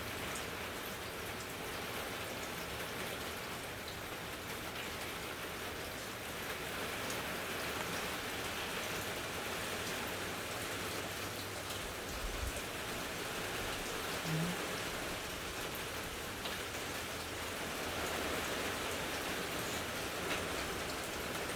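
Steady rain from a hurricane falling and hitting surfaces, with a brief low thump about twelve seconds in.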